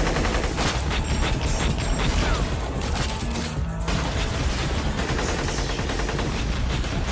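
Rapid, sustained gunfire from several rifles, with bullets smashing chips off stone, over background music.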